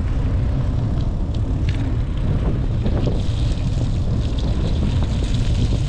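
Wind buffeting the microphone of a camera on a moving bicycle, a steady low rumble, over the hiss of knobby tyres rolling on wet asphalt, the hiss growing a little stronger about halfway through.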